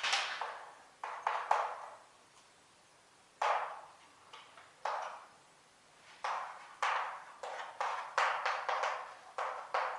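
Chalk tapping and scratching on a blackboard as figures are written: about a dozen sharp, irregular taps, each with a short ringing tail, coming closer together in the second half.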